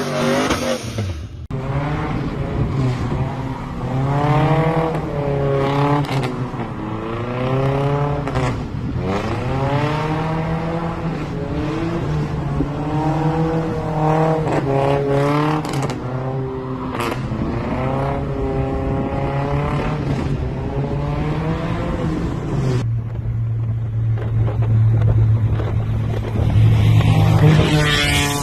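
Pickup truck engine revved hard again and again as the truck drifts, the pitch climbing and dropping every second or two. Near the end another pickup's engine holds a steady note, then revs up again.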